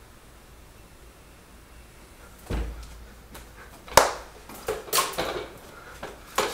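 Quiet room tone, then a low thump about two and a half seconds in, followed by a series of knocks and bumps from someone scrambling around a drum kit. The loudest is one sharp crack about four seconds in.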